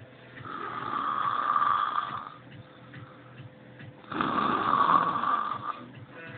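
A man snoring loudly in deep sleep: two long snores, each lasting about two seconds, about four seconds apart.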